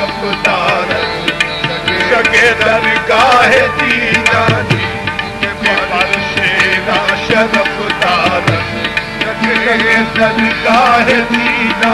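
Qawwali music: tabla drumming steadily under a sustained melody that wavers and slides in pitch.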